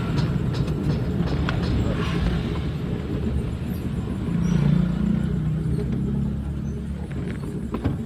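Engine and road noise of a public minibus (angkot) while driving, a steady low running sound that swells louder for about a second midway through.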